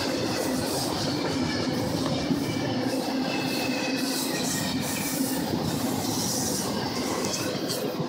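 Double-stack container freight train rolling past: a steady rumble and clatter of wheels on rail, with a thin, high wheel squeal around the middle.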